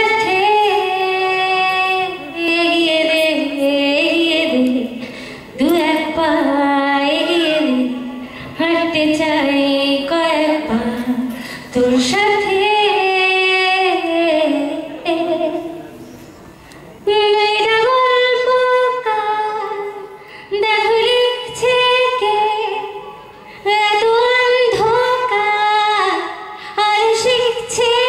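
A woman singing solo through a microphone, unaccompanied, in long held phrases with short pauses for breath between them and a longer pause a little past halfway.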